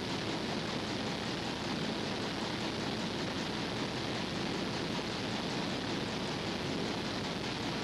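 Steady, even hiss with no distinct sounds in it, the noise floor of an old tape transfer.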